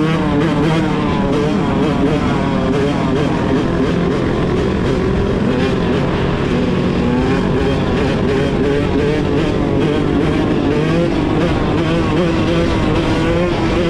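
Several dirt bike engines running together, their pitches rising and falling as the riders work the throttles.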